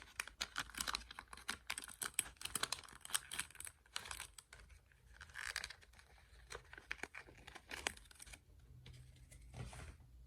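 Hands crinkling and tearing small plastic packaging, with quick light clicks and taps from handling small toy pieces; the busy crinkling dies down about eight seconds in, with one last rustle near the end.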